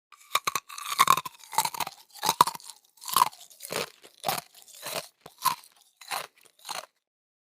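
Food-preparation sounds: about a dozen short, crunchy, scraping strokes at an uneven pace of roughly two a second.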